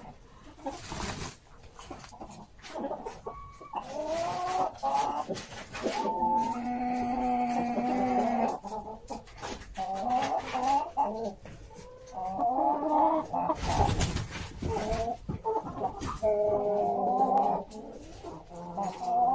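Brahma chickens clucking and calling, several birds overlapping, with a few longer held calls. About two-thirds of the way through there is a brief rustling burst.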